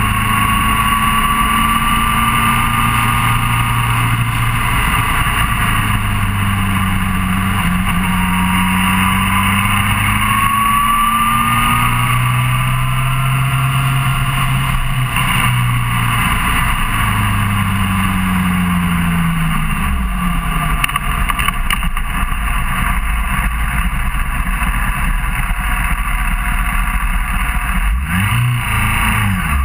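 Suzuki GSR600 inline-four motorcycle engine running at road speed under a steady rush of wind and road noise. The engine note shifts up and down in steps, drops about twenty seconds in, and climbs again near the end.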